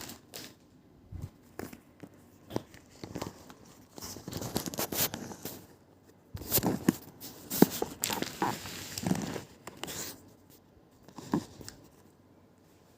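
Irregular close rustling and crinkling with scattered clicks, busiest in the middle and loudest about seven to nine seconds in.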